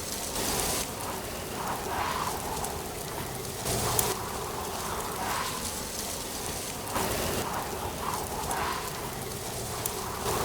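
Autumn wind blowing in gusts through trees, with dry leaves rustling; the gusts swell and fade every second or two, with a few short, hissy rushes of rustling.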